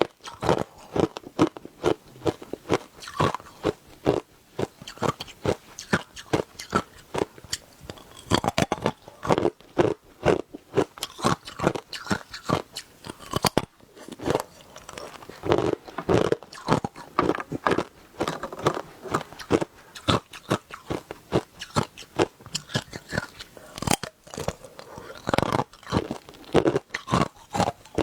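Hard ice being bitten and chewed close to the microphone: a steady run of sharp crunches and cracks, several a second.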